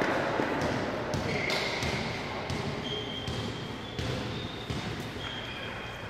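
Sports hall ambience: basketballs bouncing on the court with an echo, over a background of voices. A few high squeaks from sneakers come through in the second half.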